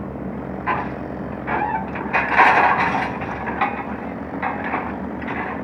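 Excavator's diesel engine running steadily, overlaid by a series of short, irregular rushing noises, the longest and loudest a little over two seconds in.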